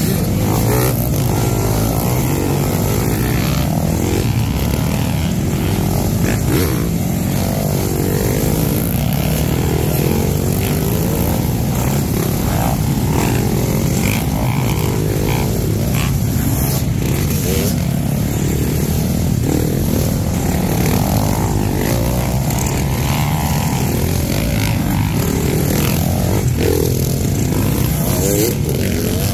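Motocross dirt bikes revving hard as they ride past close by one after another, their engine notes rising and falling in pitch as each one comes and goes.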